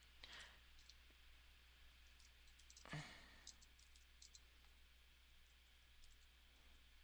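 Near silence: faint, scattered computer mouse clicks as points are placed with the pen tool, over a faint low hum, with one slightly louder short sound about three seconds in.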